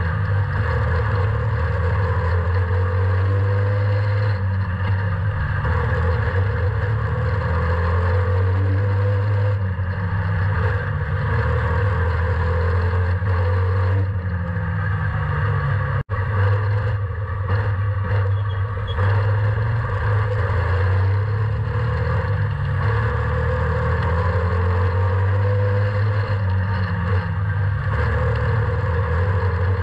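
Slingshot race car's engine heard from on board, running hard and rising and falling in pitch every few seconds as the car accelerates down the straights and lifts into the turns. The sound cuts out for an instant about halfway through.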